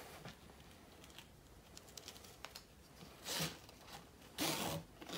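Nylon tie-down strap being pulled through a plastic buckle: a few faint clicks of the buckle hardware, then two short zipping rasps of webbing sliding through, about three and four and a half seconds in.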